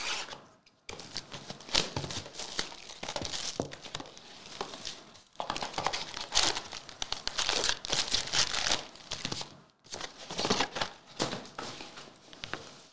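Cellophane shrink wrap crinkling and tearing as it is slit and stripped off a sealed trading-card box, then the foil card packs rustling as they are lifted out: a dense, irregular crackle.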